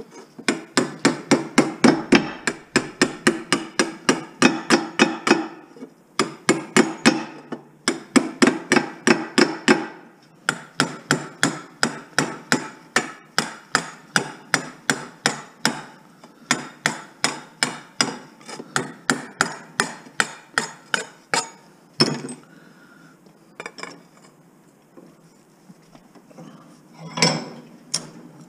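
A hammer striking an aluminum extension pole, in rapid, even blows of about three a second with a few short pauses, then a single harder blow about 22 seconds in and a few knocks near the end.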